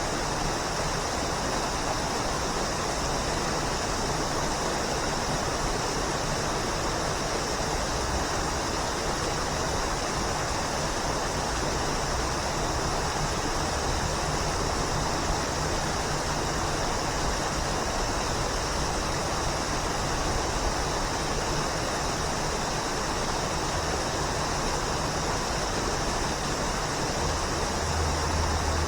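Waterfall: a steady, even rush of falling water, with a brief low rumble swelling near the end.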